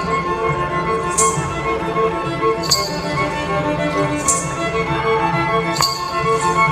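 Violin playing a slow melody over a sustained low drone, with a bright jingling percussion strike about every second and a half.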